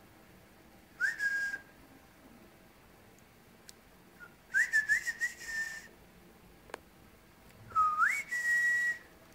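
A person whistling three times, each whistle gliding up in pitch and then holding a steady note, the second a little longer with a few quick wavers.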